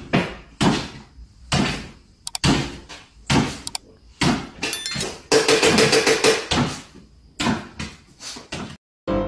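A dog jumping up and down on a wooden floor, landing with a thump about once a second. Around the middle comes a longer, rougher stretch with a buzzing note.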